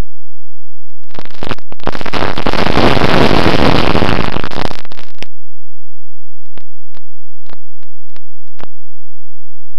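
A loud rush of air buffeting the onboard camera's microphone for about four seconds, cutting off suddenly, then a few faint clicks.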